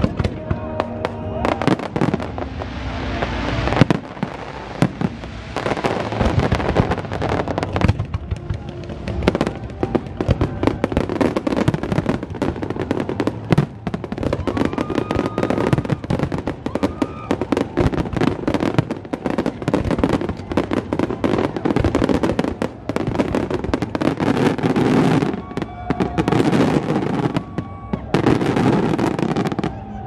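Fireworks display: aerial shells bursting in a dense, rapid barrage of bangs, almost without pause.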